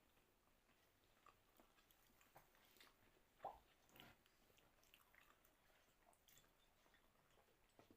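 Faint chewing of food with scattered small mouth and utensil clicks, and one louder sharp click about three and a half seconds in.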